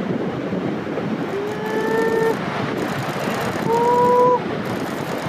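Ocean surf and wind on the microphone as a steady rushing noise, with two short steady tones over it, about two and about four seconds in.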